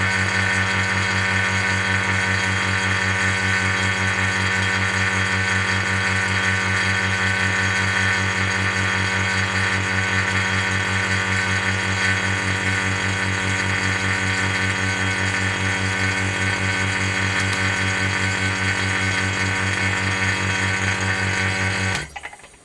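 Equipment of a vacuum glow-discharge chamber running with a steady, loud electrical-mechanical hum: a strong low mains hum under a hissing buzz. It cuts off suddenly near the end.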